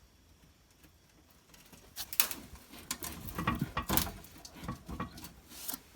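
Irregular scraping, knocking and rattling of a plastic fuel tank and floor jack as the tank is lowered and slid out from under the vehicle. It starts about two seconds in, with a few sharper knocks along the way.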